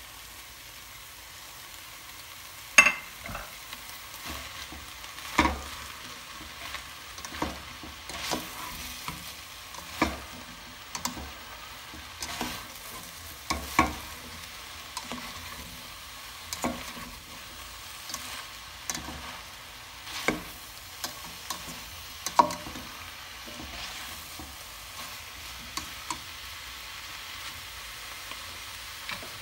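Vegetables sizzling in a stainless steel pan as they are stir-fried, with irregular clacks and scrapes of a spatula against the pan as they are stirred. The clacks grow sparse toward the end.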